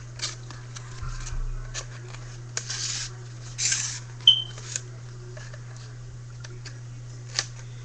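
Rolled paper tubes rustling and scraping as they are handled and pushed one inside another, with scattered light taps and a brief high-pitched chirp about four seconds in, over a steady low electrical hum.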